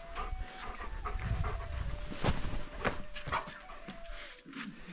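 Dog panting in short breaths while waiting for its ball.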